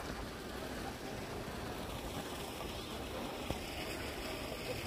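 Steady outdoor background noise, heaviest in the low end, with faint distant voices and one small click about three and a half seconds in.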